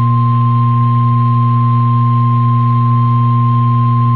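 Emergency Alert System attention signal received over a radio broadcast: one steady, unwavering tone near 1 kHz, the warning tone that announces an emergency message, here a severe thunderstorm warning. It sits over a loud, steady low electrical hum.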